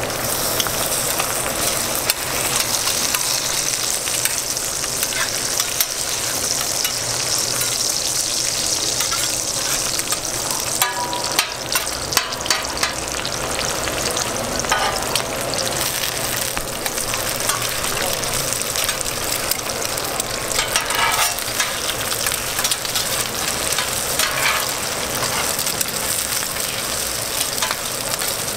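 Burger patties and eggs sizzling in oil on a flat-top steel griddle, a steady high hiss. Metal spatulas scrape and clink against the griddle plate again and again as the food is flipped and lifted.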